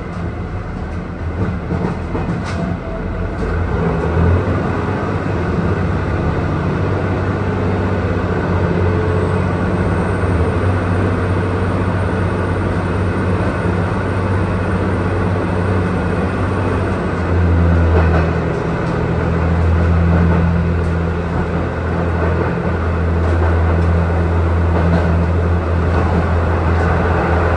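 Interior running noise of a JR Kyushu YC1 hybrid diesel railcar under way: a steady low drone with rail noise, growing stronger about two-thirds of the way in. A faint high whine sounds for several seconds in the middle.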